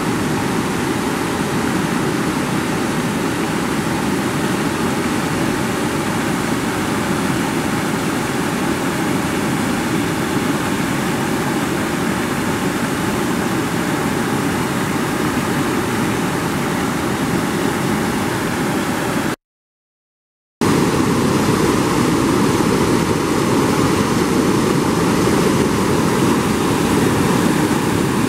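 Fast floodwater rushing steadily over a flooded low-water road crossing and spilling off its downstream edge. The sound cuts out for about a second roughly two-thirds of the way through, then resumes.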